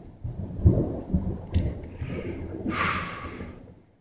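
Thunder from a close lightning strike rumbling on, with a few sharp cracks in the first second and a half, then fading away. A brief hiss comes about three seconds in.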